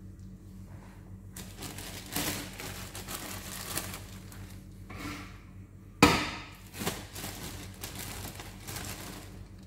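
Plastic bread bag crinkling and crackling as it is handled and opened, with one sharp loud crackle about six seconds in. A low steady hum runs underneath.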